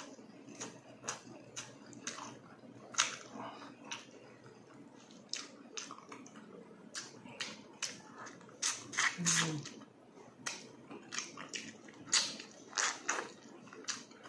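Close-up eating sounds of a person chewing braised tuna jaw with the mouth open: wet smacks and clicks at irregular intervals. The smacks cluster more thickly around the middle and near the end.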